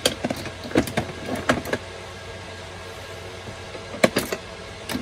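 Screwdrivers clicking and clattering against each other and a plastic tool box as a hand rummages through them: a string of knocks over the first two seconds, then a few more about four seconds in.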